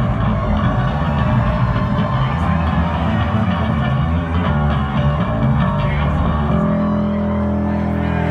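Amplified electric bass guitar played solo: a busy run of quick low notes, then from about six and a half seconds in several notes held and left ringing together.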